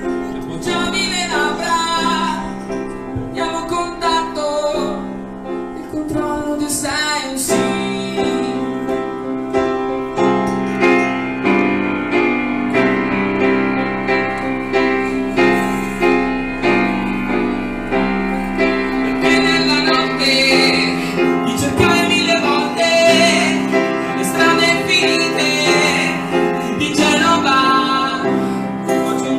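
A woman singing live over grand piano accompaniment, a song that runs through the whole stretch.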